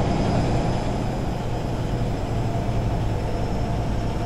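Bosch Axxis front-loading washing machine running with a steady, jet-like roar over a low hum and a higher whine. Its owner suspects a fault because something about it is not right.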